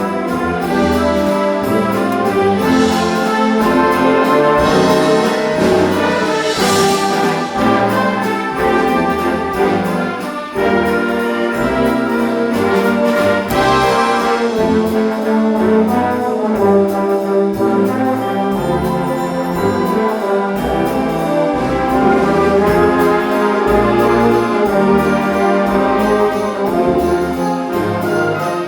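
Community concert band playing, with brass carrying the music over a steady low bass line and occasional cymbal crashes.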